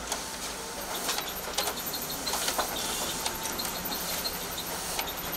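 Konica Minolta bizhub 367 copier running a double-sided copy job: a steady mechanical whir with repeated clicks as the document feeder and paper path handle the sheets, and a thin high whine setting in about a second in.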